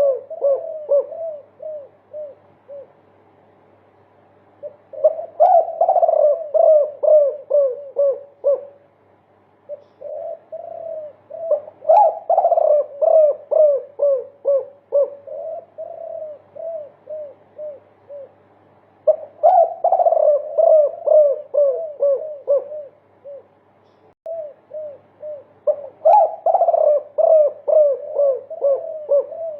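Spotted dove (derkuku) cooing in its multi-note song: bouts of a few seconds, each a fast string of short coos at about four a second that settles slightly lower in pitch toward its end, with brief pauses between bouts.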